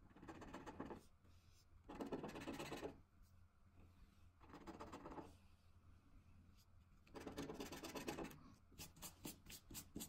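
Faint scratching of a scratch card's latex coating with a small scratching tool, in four separate strokes of about a second each, then a run of quick short scrapes near the end.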